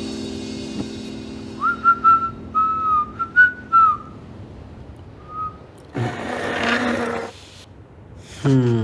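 A man whistling a short tune of a few separate notes, starting about a second and a half in, as held background music notes fade out. A brief rustle follows, and near the end a short sound slides down in pitch.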